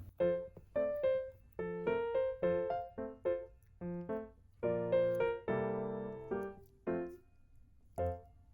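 Piano or keyboard melody: a run of single struck notes and small chords, each fading after it is played, ending with one last note after a short pause near the end.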